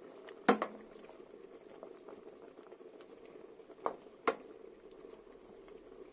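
Chicken in cream sauce simmering in an aluminium pot, a steady soft bubbling, stirred with a wooden spoon. Three sharp knocks against the pot, the loudest about half a second in and two close together about four seconds in.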